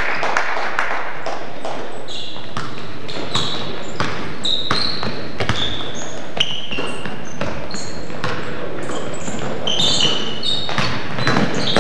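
Basketball game play on a hardwood gym floor: sneakers squeaking in short high chirps and the ball bouncing, echoing in the gym, with faint voices.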